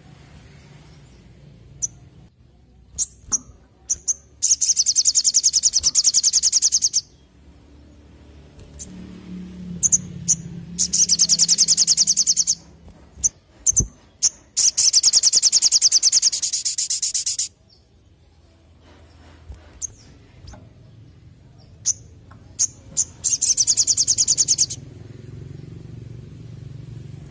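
Male olive-backed sunbird singing its rapid, high 'nembak' song: four fast trills of two to three seconds each, broken up by short, sharp chip notes.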